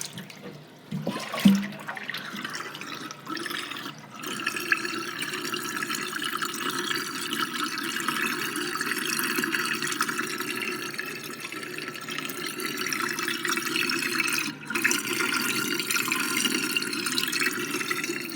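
Water in a kitchen sink draining as a whirlpool down the plughole: a brief knock about a second and a half in, then a steady rush of water that sets in about four seconds in and keeps going.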